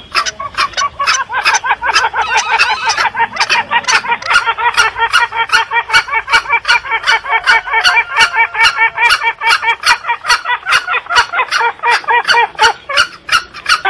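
Green junglefowl calling in a rapid, unbroken series of short calls, about three a second, a recording used as a hunter's lure call.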